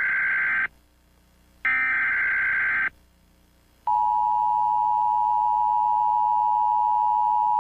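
Emergency Alert System alert tones: two harsh data bursts of about a second each, then, about four seconds in, the steady EAS attention tone starts and holds, signalling the start of a new alert.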